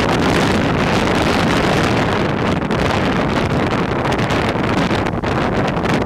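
Strong wind blowing across the microphone: a loud, steady rush of noise that dips slightly now and then.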